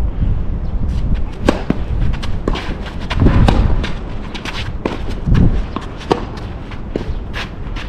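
Tennis rally: a string of sharp knocks from the ball being struck by the racquets and bouncing on the court, roughly every second, mixed with the player's footsteps and shuffles, over a low rumble.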